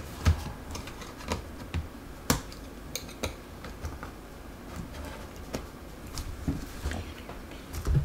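Irregular clicks and taps of fingers pressing down across a Dell Latitude E6540 laptop keyboard, pushing it to snap back into its retaining clips.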